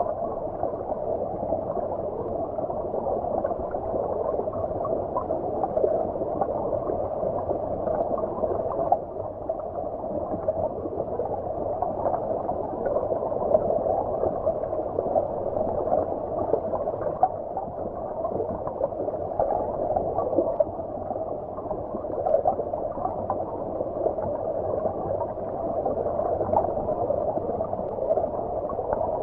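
Flowing stream water heard from beneath the surface: a steady, muffled gurgling with no bright splash or hiss.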